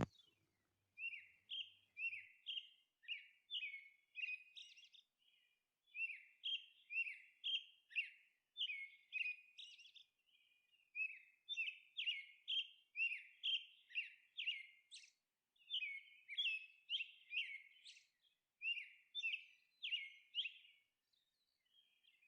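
Faint bird chirping: short, high chirps, each dropping quickly in pitch, repeated about twice a second in runs with brief pauses between them.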